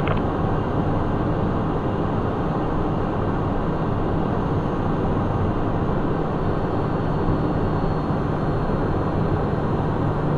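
Steady in-flight cockpit noise of a Cessna Citation 501 in level flight: a constant rush of airflow over the low hum of its twin Pratt & Whitney JT15D turbofans, unchanging throughout.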